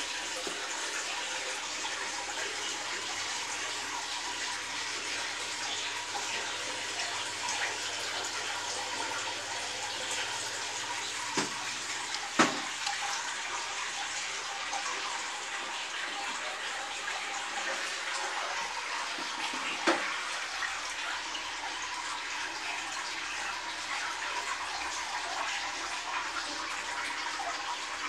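Steady rush and splash of moving aquarium water in a fish tank. Three short knocks stand out, a pair about halfway through and one more about two-thirds of the way.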